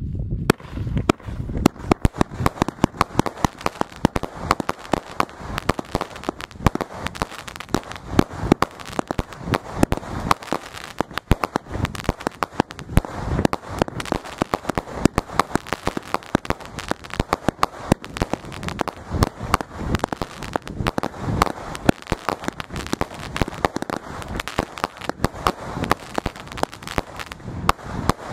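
A fast 70-shot fireworks cake, Wonderful Heaven (DC810), firing without pause: a quick run of sharp launches and shell bursts, a couple to a few shots a second.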